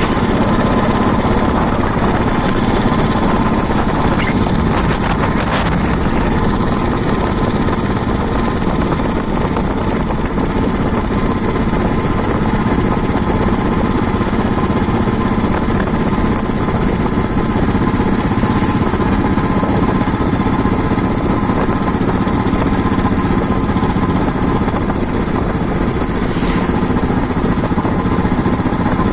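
Vehicle engine and road noise, loud and steady throughout, as on a drive.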